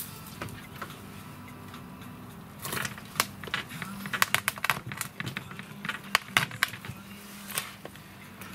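Kitchen knife knocking and clicking against a plastic cutting board as raw rabbit is cut into pieces: a quick, irregular run of sharp clicks starting about three seconds in and stopping shortly before the end.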